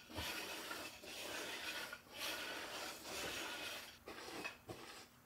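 Lint roller rolling over fabric upholstery in about four rough swishing strokes of roughly a second each, picking up dust.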